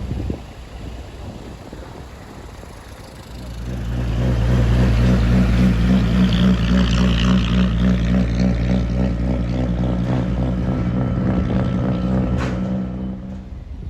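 Tugboat engine, low at first, grows louder about three and a half seconds in to a steady deep running, then fades near the end.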